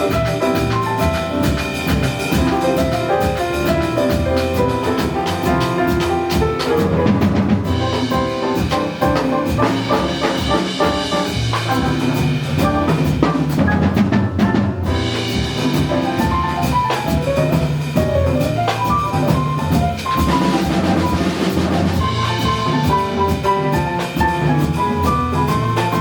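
Live jazz ensemble playing, with drum kit and cymbals busy under bass and fast melodic lines.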